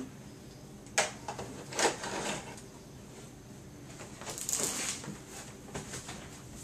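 A few sharp knocks and clicks from objects being handled, with a short rustle near the middle.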